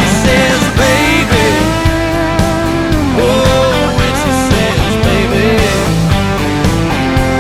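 Country-rock song playing as background music: an instrumental passage with guitar over a steady drum beat.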